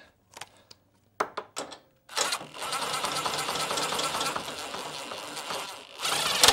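Cordless impact driver running a bolt into a suspension frame bracket through a socket extension: a few light clicks of the bolt and tool being set, then about two seconds in a fast rattling that lasts about four seconds and ends in a louder burst.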